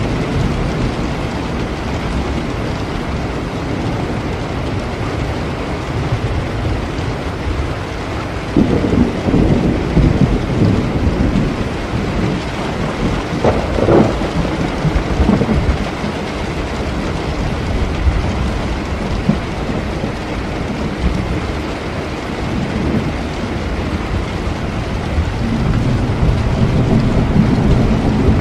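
Steady rain falling, with rolling thunder: a long rumble builds about a third of the way in, with a sharper crackle in the middle of it, and another rumble rises near the end.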